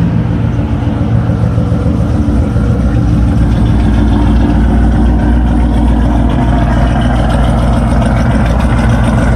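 Ford Mustang GT's 4.6-litre V8, fitted with aftermarket camshafts and bolt-on parts, idling steadily.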